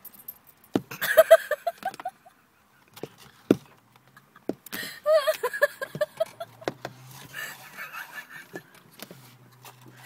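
Silver gulls jabbing their beaks at a car windscreen to reach chips on the dashboard behind the glass, making a few sharp knocks. These come between two bursts of quick, high, up-and-down yelping, which are the loudest sounds.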